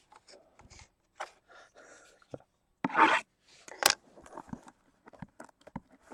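Handling noises of a box and its packaging: scattered light clicks and scrapes, a short breathy rush of noise about three seconds in, and a sharp click just before the fourth second.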